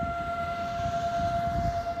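Outdoor warning siren sounding a steady single tone for a test, swelling slightly louder about a second in, over a low rumble of background noise.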